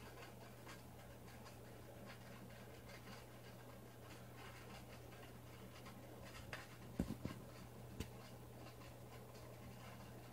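Low, steady hum of reef aquarium equipment with faint scattered crackling clicks, and a few sharper knocks about seven seconds in and once more a second later.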